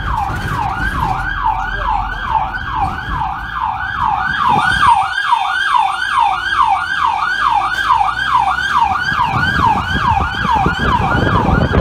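Electronic emergency siren of a fire brigade rescue van on a call, in a fast yelp that sweeps up and down about three times a second, with the van's engine and road rumble beneath.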